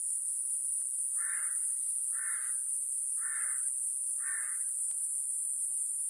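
Steady high-pitched buzzing song of Iwasaki grass cicadas (Mogannia minuta), with a crow cawing four times, about a second apart, starting about a second in.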